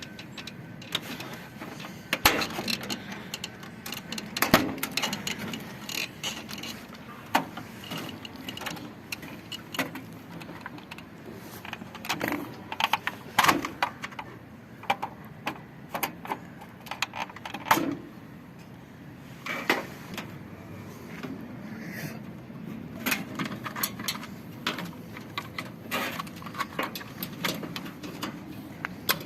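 Hand tools and metal parts clinking, knocking and scraping at irregular intervals while a washing machine is dismantled, with a few louder clanks about two, four and a half, thirteen and eighteen seconds in.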